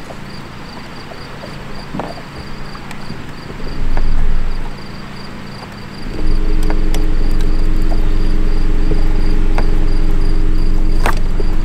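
Insects chirp in a fast, steady pulse throughout. About six seconds in a boat motor starts running, a steady low hum with a droning tone that becomes the loudest sound.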